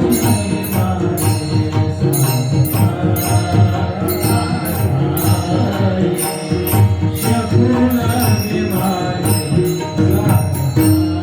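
Marathi devotional kirtan music played live, with a steady beat of sharp metallic strokes and drum under the melody.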